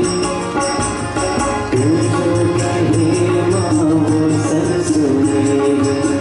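Live Hindu devotional bhajan: a man singing, accompanied by a harmonium's sustained reed tones and tabla strokes.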